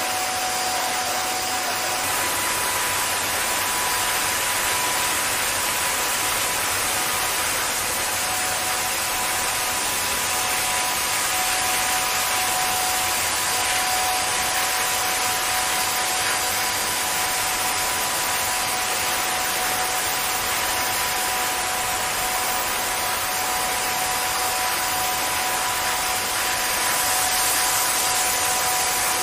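Leisuwash S90 touchless automatic car wash machine spraying water and foam over a car. A steady rushing spray runs alongside a constant machine whine.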